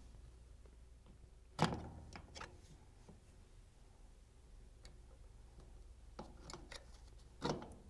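Plastic locking tabs on a dishwasher motor bracket being pried loose with a small flathead screwdriver: a sharp click about a second and a half in and another near the end, with lighter ticks of tool on plastic between.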